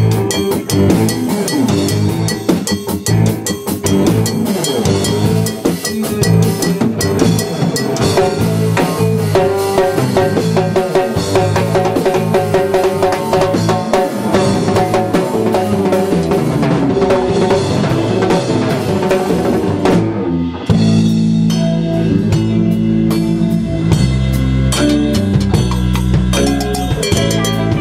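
Live rock band playing a song: drum kit and percussion with keyboard and electric guitar. About 21 seconds in, the music shifts into a heavier section with a deep bass line.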